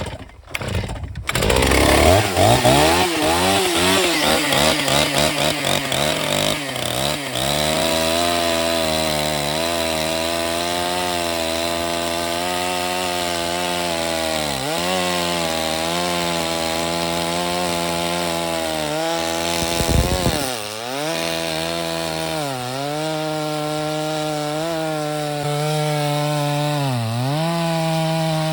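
Two-stroke chainsaw on a chainsaw mill, revving up at the start and then running steadily under load as it rips through the log. Its pitch sags briefly several times where the chain bogs down in the cut.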